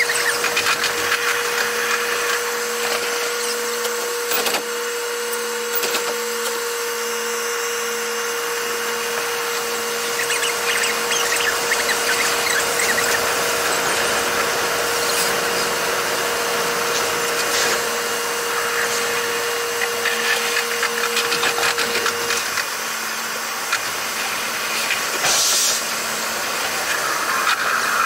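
Running sound of a train recorded from the driver's cab and played at eight times speed: a dense, high-pitched whirring hiss. A steady tone runs through it and stops about 22 seconds in.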